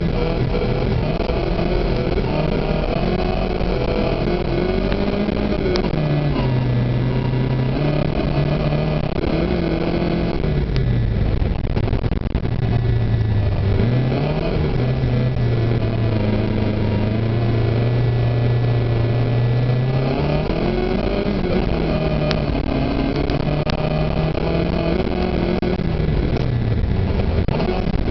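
Opel Ascona B rally car's engine heard from inside the cabin, revving up and dropping back again and again as it changes gear, with a long steady pull in the middle. Constant road and tyre noise runs beneath it.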